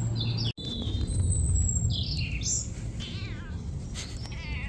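Old domestic cat meowing: a couple of short, wavering calls in the second half, with small birds chirping.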